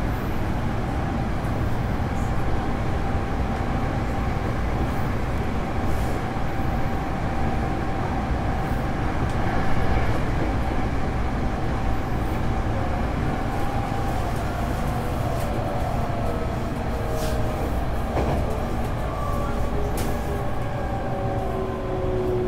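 Hankyu 8300 series electric train heard from inside the car: steady running rumble over the rails with the air conditioning running. Its Toyo GTO-thyristor VVVF inverter whines, and over the second half several whine tones fall steadily in pitch as the train slows for the next station, with a few faint clicks along the way.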